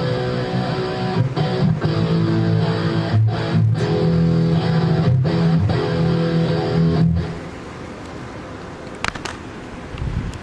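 80s-style rock backing track with electric guitar and bass, stopping about seven seconds in; a quieter hiss follows, with a brief click near the end.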